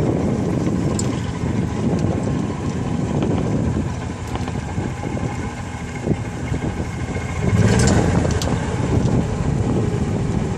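Golf cart rolling along a concrete cart path: a steady rumble of motor and tyres with wind buffeting the microphone, swelling louder for about a second late on.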